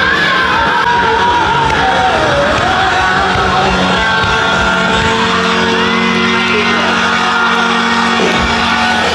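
Music with singing and guitar: a wavering melody line, then held chords that stop just before the end.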